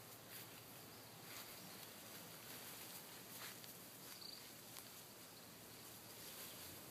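Near silence: faint outdoor ambience with a few soft ticks scattered through it.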